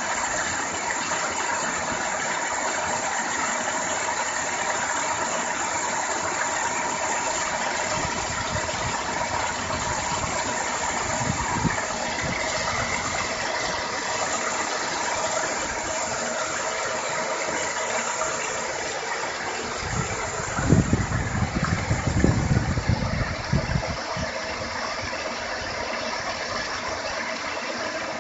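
Electric paddle wheel aerator running, its paddles churning and splashing the water in a dense, steady rush with a faint motor hum underneath. About two-thirds of the way through, a few seconds of loud, low, irregular thumps come through.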